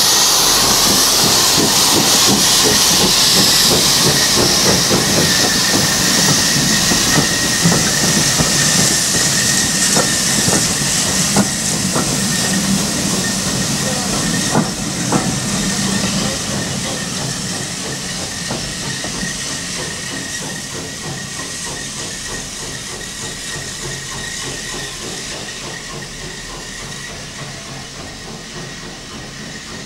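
Steam train passing and drawing away: a steady steam hiss over the running of the coaches, with a thin steady high tone and scattered clicks. Everything fades gradually over the second half as the train moves off.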